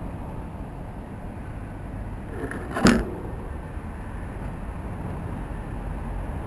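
Steady low rumble of road traffic, with one short, sharp, loud knock about three seconds in.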